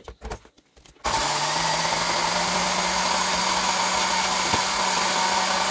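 A few light knocks as the blender jar is seated on its base, then about a second in a countertop blender switches on and runs steadily, its motor whirring with a steady hum as it blends cut green corn kernels with milk.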